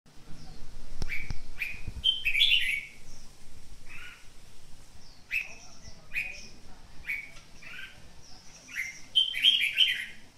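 Red-whiskered bulbul calling: short, bright chirps repeated about once a second, with two louder bursts of fuller warbling song, about two seconds in and again near the end.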